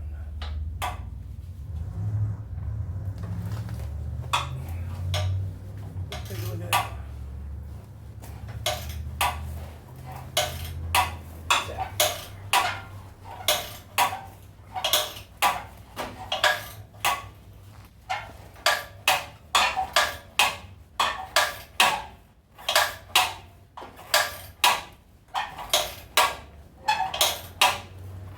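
Hand tools working on a metal bolt: sharp metallic clinks repeating steadily, about one or two a second, starting about eight seconds in. A low rumble sits under the first ten seconds or so.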